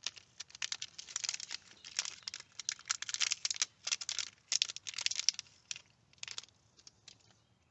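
Dense run of small clicks and crackles from plastic parts being handled, stopping about six and a half seconds in.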